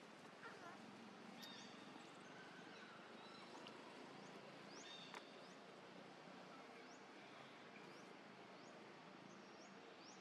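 Faint outdoor ambience: a low even hiss with short, high, rising chirps every second or so, and a single sharp click about five seconds in.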